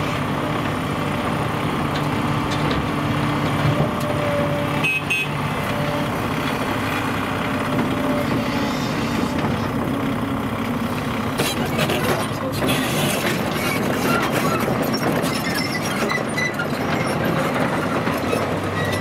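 Diesel engines of a Volvo EC210B crawler excavator and a dump truck running steadily under load. A little past halfway come a few clanks and scraping as the excavator bucket digs into frozen dirt.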